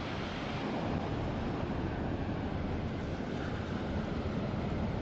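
Ocean waves breaking and washing up a sandy beach: a steady rush of surf.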